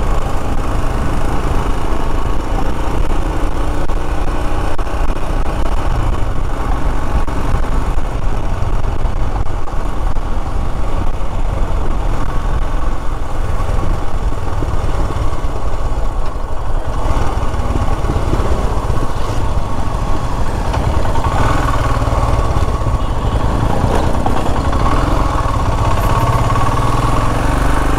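Royal Enfield Himalayan's single-cylinder engine running steadily while the motorcycle is ridden, heard from the rider's position.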